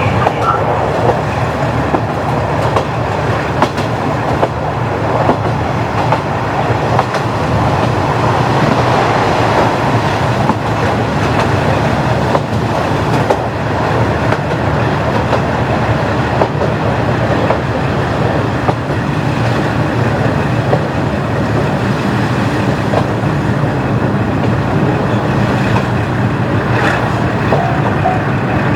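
A KiHa 40-series diesel railcar running along the line, with a steady low engine drone over the rolling noise and the clickety-clack of the wheels on rail joints.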